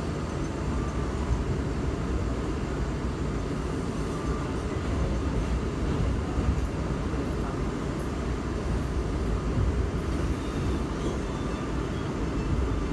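Steady low rumble of an R179 subway car heard from inside while it runs along the track, with a few faint clicks.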